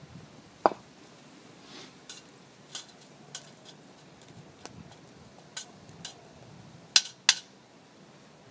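A spork clinking and scraping against a plate and a mess tin pot as sliced potatoes are spooned into the pot: a string of sharp, irregular clinks, one with a brief ring about half a second in, and the loudest two in quick succession near the end.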